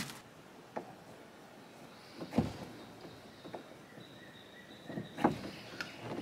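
A few light knocks and taps of hands and cord against a plastic canoe hull while paracord is tied down to the side; the loudest knock comes about two seconds in, another a little after five seconds. A faint steady high tone sounds in the middle.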